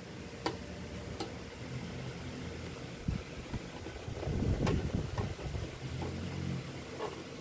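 Plastic toy house carry case being handled: a few light clicks from its plastic latches and shell, with a cluster of knocks and rustling about four to five seconds in. Underneath runs a steady low mechanical hum.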